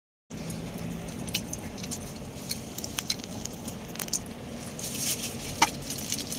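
Car cabin noise while driving: a steady low hum from the engine and road, with scattered small clicks and rattles. It starts after a brief silent dropout, and a brighter rustling hiss comes in near the end.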